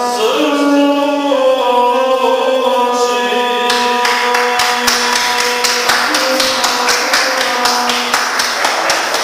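Chanted singing on long held notes. About four seconds in, a dense run of sharp claps starts, like a small crowd applauding, while the last notes fade out.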